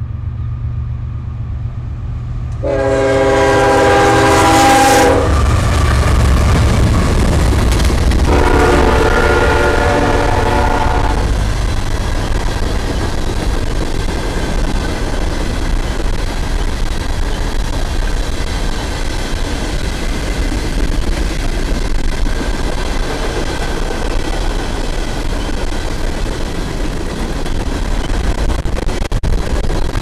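Diesel freight locomotive's multi-note air horn sounding two long blasts, the first about 3 seconds in and the second about 8 seconds in. After the horn, a long train of loaded coal hopper cars rolls past with a steady rumble and wheels clattering over the rail joints.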